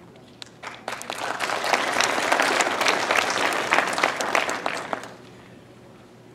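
Audience applauding: scattered first claps that quickly build into full applause, which holds for about four seconds and then dies away.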